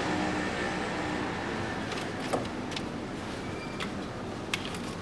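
A few sharp clicks and small knocks of hands fitting hoses and connectors in an engine bay, over a steady background hum.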